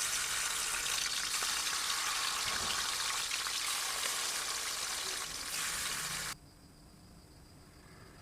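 Food frying in hot oil, a dense sizzling and crackling that cuts off suddenly about six seconds in, leaving only faint background.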